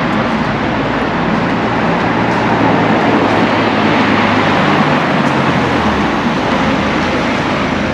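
A motor vehicle's engine running close by over steady street noise. Its low hum fades out about six seconds in.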